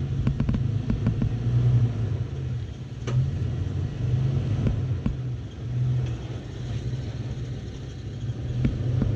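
Toyota FJ Cruiser's 4.0-litre V6 engine running at low revs as the truck crawls over rocks, its note swelling and easing as the throttle is worked. A few sharp clicks and knocks of the tyres on rock and gravel come through it.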